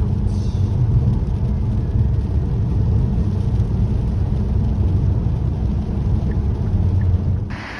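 Steady low rumble of a car driving: engine and road noise. It cuts off abruptly near the end.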